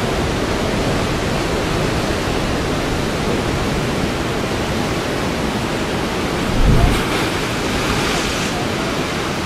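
Ocean surf breaking steadily on granite ledges. About two-thirds of the way through, a wave surges into a narrow rock chasm with a deep, short boom, followed by a brief hiss of spray.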